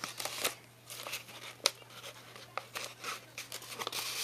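Rolled paper tubes handled and pressed together by hand, rustling and crinkling, with scattered sharp clicks and taps, over a faint steady low hum.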